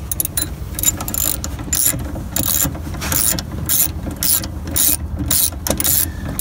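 Socket-wrench ratchet clicking in a run of short, repeated back-and-forth strokes as it loosens a 10 mm bolt.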